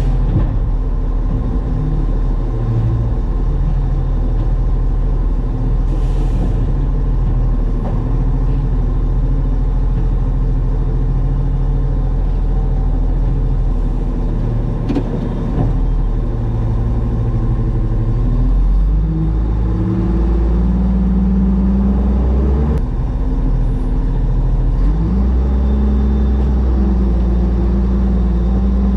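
Motor vehicle engine running steadily under way, its note shifting and rising a couple of times in the second half as it picks up speed.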